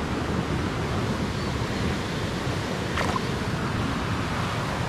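Steady rush of flowing river water around a wading angler, with wind on the microphone.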